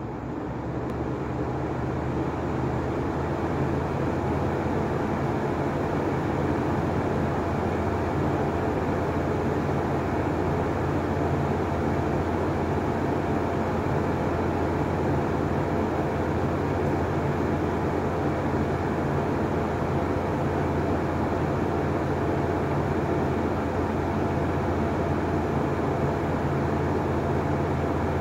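Lanson Style 4 exhaust fan with a generic triangle propeller running at high speed. It builds up over the first few seconds, then holds a steady motor hum under a rush of air.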